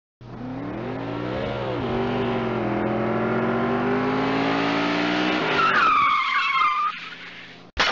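Car engine revving up with the pitch rising, then tyres screeching for about a second and a half near the end.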